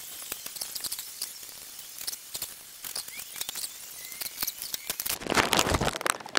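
Cotton ribbon being handled while wrapping a sword handle: scattered small clicks, scratches and rustles as the cord is tucked and threaded. About five seconds in there is a louder rustle as the ribbon is pulled tight.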